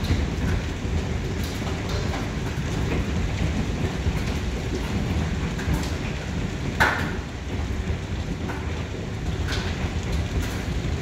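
Hailstorm: hail and rain beating down in a steady dense roar, with scattered sharper hits of stones striking, and one louder hit about seven seconds in.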